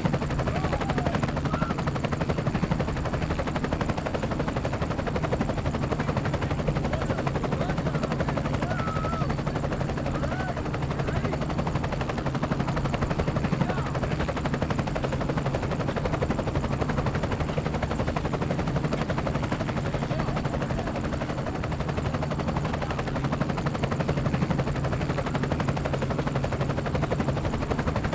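Helicopter rotor and engine noise from on board, a steady rapid chop with a low drone throughout.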